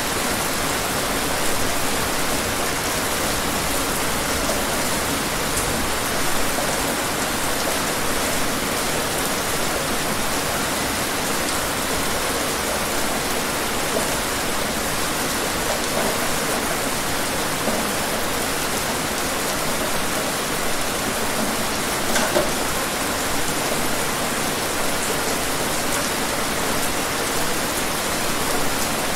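Steady rain: an even hiss with the odd single drop landing a little louder.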